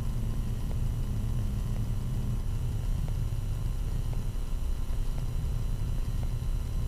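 Steady low rumble inside the cockpit of a Cessna Citation CJ4 rolling on the ground just after landing, its engines at idle.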